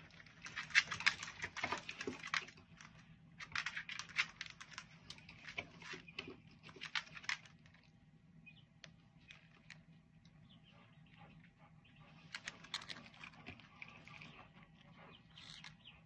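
Dogs shuffling about on a vinyl plank floor, their claws making quick clicks and taps in several spells, with a lull in the middle.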